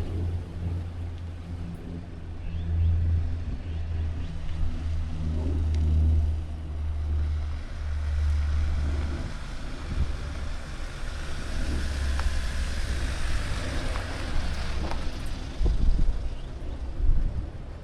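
Kia Sportage driving along a road: a steady low rumble of engine and tyres with road and wind noise that swells for a few seconds in the middle, and two sharp knocks near the end.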